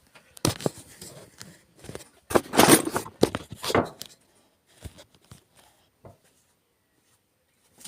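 Handling noise in a workshop: a few sharp knocks, then a longer scraping, rustling clatter about two to four seconds in as metal parts are moved about. After that only faint clicks.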